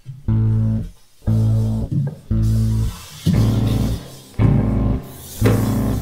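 Film soundtrack music: a deep bass line of long low notes, about one a second, with short breaks between them.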